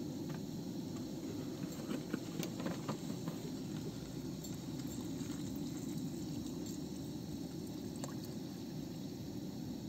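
Water poured from a plastic jug into a steel cooking pot on a portable gas stove, over a steady low hiss. A few light clicks come in the first few seconds as the jug is handled.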